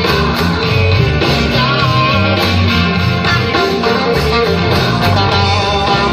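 Instrumental rock music with electric guitar over bass and drums, between rapped verses.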